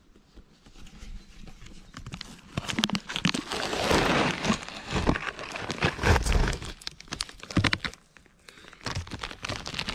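Thin plastic bag crinkling and rustling as a raw steak is handled inside it, in a dense run of crackles, with a dull thump about six seconds in.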